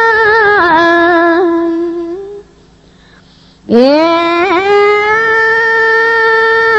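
Khmer smot chanting by a solo woman's voice, holding long ornamented notes that step down to a lower pitch and fade out about two seconds in. After a pause of about a second, the voice slides up into a new long held note with small wavering turns.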